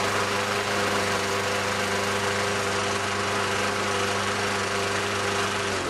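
Tecumseh 4.5 hp single-cylinder four-stroke lawn mower engine running steadily with its kill-switch wire disconnected, which shows the ignition module is making spark. It cuts off abruptly near the end.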